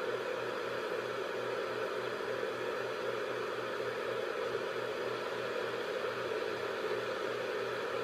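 Steady white noise: an even, unchanging rushing hiss with a faint low pulse underneath, repeating a few times a second.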